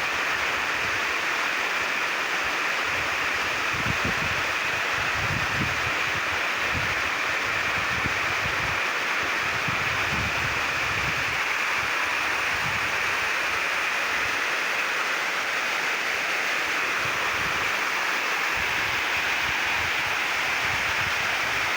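Steady rushing of a waterfall, with wind buffeting the microphone in irregular low rumbles.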